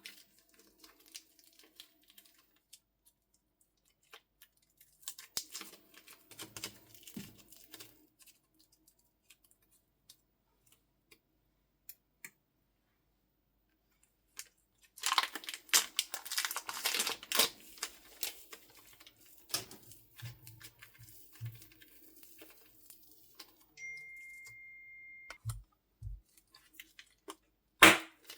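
Slime and soft clay being squished, stretched and pulled apart by hand, with crackly, sticky tearing noises in bursts; the densest burst comes around the middle. Near the end there are two soft low thuds and a sharp click.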